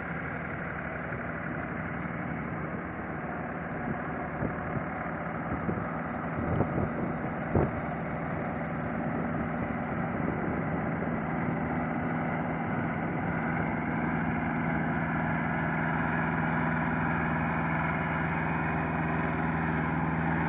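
Two-cylinder Kubota diesel of a stand-on truck-mounted forklift running steadily as the machine drives across the field, growing louder as it comes close. A few knocks sound in the middle, the sharpest about seven and a half seconds in.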